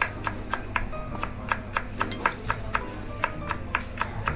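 Chef's knife rapidly slicing spring onions on a wooden cutting board, a quick even run of about four taps a second, over background music.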